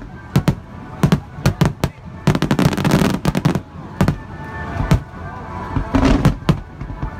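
Aerial firework shells bursting in a fast, irregular barrage of sharp bangs. They come densest in a run from about two to three and a half seconds in, with another cluster around six seconds.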